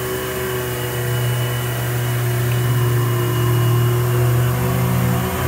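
Service truck's engine running steadily just after a remote start from the crane controller, with the PTO engaged to drive the hydraulics; the sound grows a little louder through the middle of the stretch.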